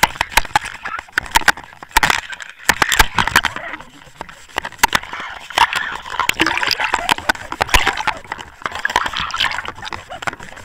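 Water sloshing and gurgling, churned up, with many sharp irregular clicks and knocks.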